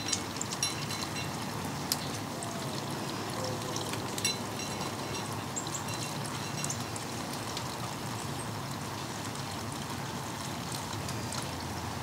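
Steady rain falling, an even hiss of water, with a few sharp taps in the first few seconds.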